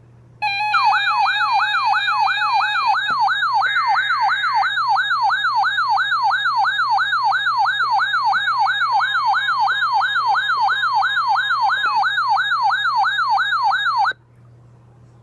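Emergency Alert System alert tone announcing a tornado warning: a steady two-note attention tone with a warbling, siren-like tone sweeping up and down about three times a second laid over it. It starts about half a second in and cuts off suddenly near the end.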